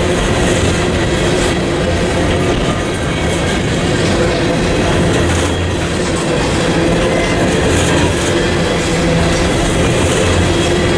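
Empty coal gondolas of a freight train rolling past, their steel wheels running on the rails in a steady, loud rumble with faint steady tones.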